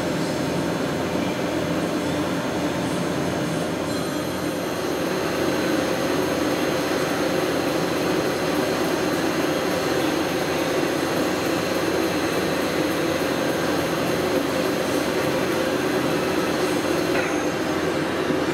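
Weiler E50/2D lathe running with its spindle turning, a steady mechanical hum with a faint high whine that comes in about four seconds in.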